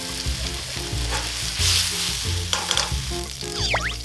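Floured oysters sizzling in hot oil in a frying pan, stirred and turned with wooden chopsticks.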